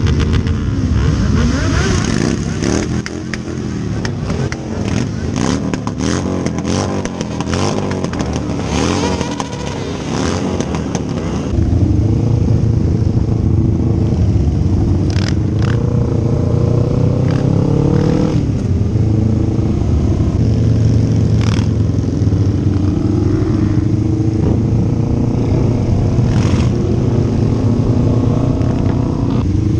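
Many motorcycle engines idling and revving up and down around a stopped group of bikes. About twelve seconds in it gets louder and steadier as the bikes ride off, with the engine holding a fairly even pitch and a few sharp clicks.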